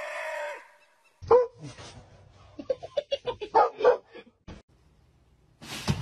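A dog barking and yelping in short bursts, broken by quiet gaps.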